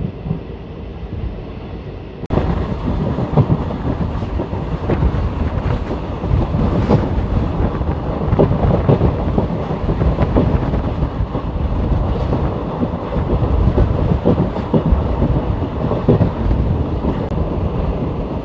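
Passenger train running, heard from an open coach doorway: a steady rush of running noise with the wheels knocking and clattering over the track. It gets louder and brighter about two seconds in.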